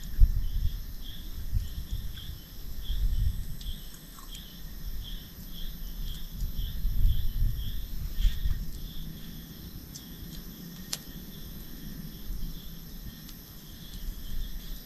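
Cricket chirping steadily, about two chirps a second, over uneven low rumbling, with one sharp click about eleven seconds in.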